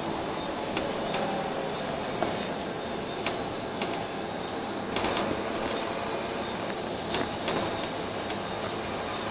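Inside a Wright Eclipse single-deck bus on the move: a steady run of engine and road noise, with irregular sharp rattles and clicks every second or so.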